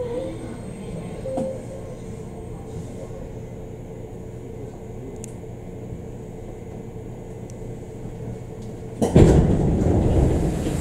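Running noise heard inside a JR 205-5000 series electric train car: a steady low rumble from the wheels and running gear. About nine seconds in it turns suddenly into a much louder rush of noise.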